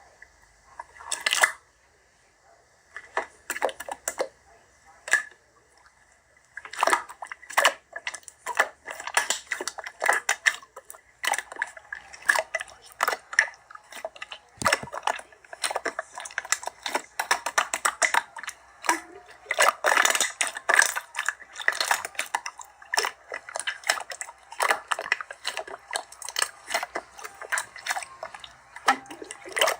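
Crisp clicking and crunching: a few scattered clicks at first, becoming a dense, irregular run of clicks from about seven seconds in.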